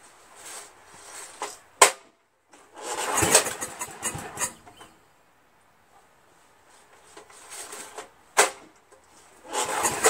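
Briggs & Stratton 11 HP engine on a generator being pull-started by its recoil rope: a sharp click, then a loud rasping whir as it cranks about three seconds in, and the same again near the end. The engine turns over but does not catch; it wants to fire but doesn't.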